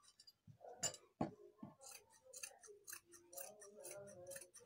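Scissors snipping through heavy gobelin upholstery fabric in a run of short cuts, about three or four a second, with a couple of sharper clicks about a second in.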